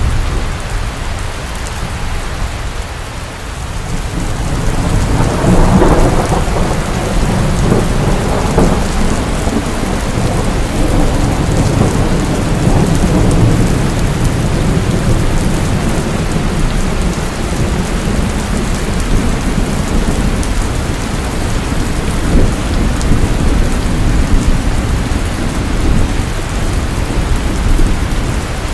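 Steady heavy rain falling, with a deep low rumble underneath that swells about five seconds in and then carries on.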